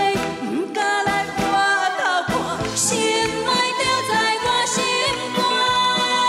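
Two women singing a Taiwanese Hokkien pop song as a duet, over a backing band with a steady beat.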